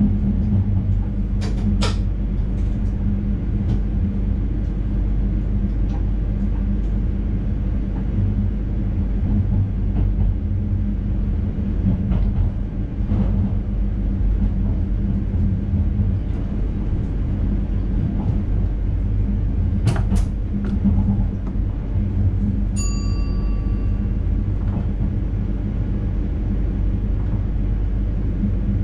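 NS intercity train running at speed, heard from inside the driver's cab: a steady low rumble with a motor hum, a few sharp clicks, and a short chime about two-thirds of the way through.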